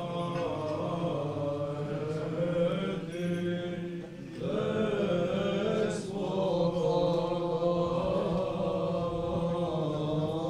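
Men's voices singing Orthodox church chant, a slow sustained melody over a steady low note, with a brief break about four seconds in.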